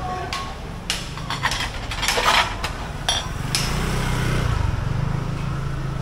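A run of sharp knocks and clinks, densest about two seconds in, then a low steady hum from about halfway through.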